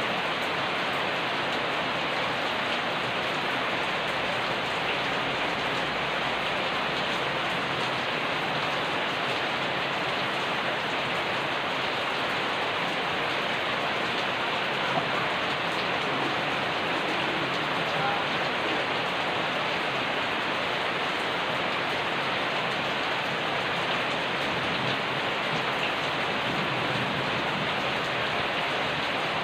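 Steady rain falling and pattering on surfaces, a dense even hiss with no let-up.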